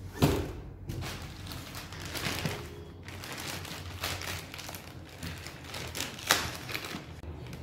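Cardboard parcel box and plastic packaging being handled: irregular rustling and crinkling, with a sharp knock just after the start and another about six seconds in.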